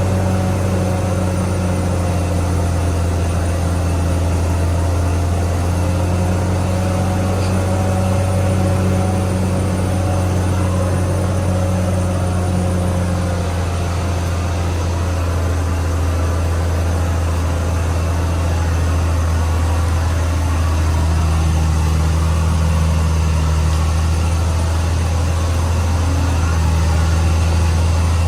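CAT D6R XL bulldozer's diesel engine running steadily with a deep, even drone; its tone shifts slightly about halfway through.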